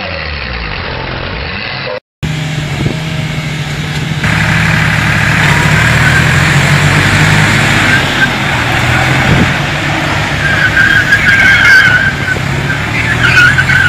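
Tractor and SUV engines running hard under load as they pull against each other on a tow line, steady and getting louder a few seconds in. A brief silent break comes about two seconds in, and a high wavering sound joins near the end.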